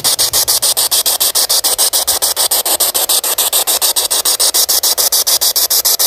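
P-SB7 Spirit Box radio sweeping through stations: a loud hiss chopped into rapid, even pulses several times a second as it skips from frequency to frequency.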